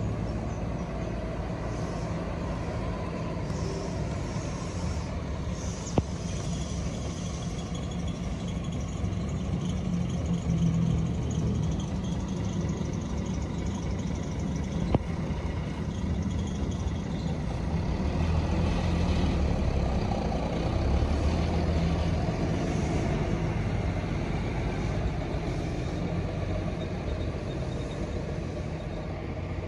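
Coach bus engine running with a steady low drone as the bus pulls out and drives away, growing louder about two-thirds of the way through. Two brief sharp clicks stand out, about six and fifteen seconds in.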